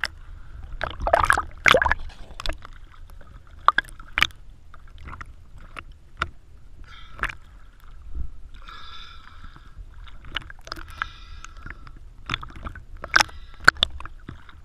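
Underwater sounds of scuba diving: bursts of regulator bubbling every couple of seconds among many sharp clicks and knocks, over a low rumble.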